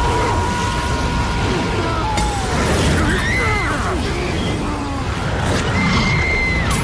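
Film sound design of a loud, low, steady rumble of fire, with wailing, screaming voices that glide up and down about three seconds in and again near the end. A steady high tone stops about two seconds in.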